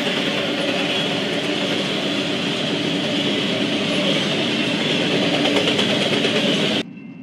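A double-stack container freight train rolling past, a steady rumble and rattle of wheels and cars heard through a trackside railcam microphone. The sound cuts off suddenly near the end, leaving a faint steady hiss.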